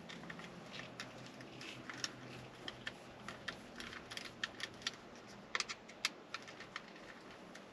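Faint, irregular small clicks and ticks of a hand Phillips screwdriver turning small screws into a phone-mount bracket.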